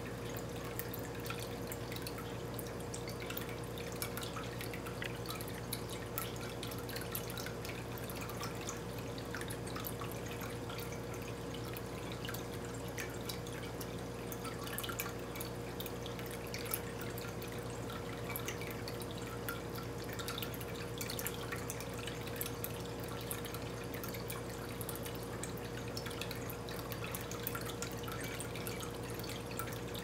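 Water dripping in many irregular light ticks over a steady low hum.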